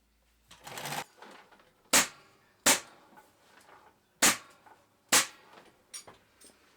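An upholstery staple gun firing four sharp shots, unevenly spaced, after a short rustle of fabric or a swish.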